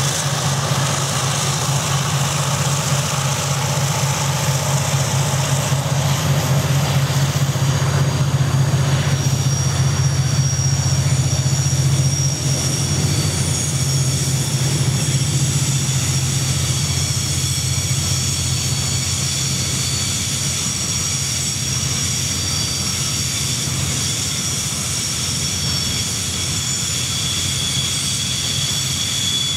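Two KiwiRail diesel-electric locomotives, DX and DFT class, run past hauling a train of milk tank wagons, with a deep steady engine drone that eases off over the first half. From about eight seconds in, a high steady wheel squeal from the tank wagons rounding the curve comes in and grows stronger toward the end.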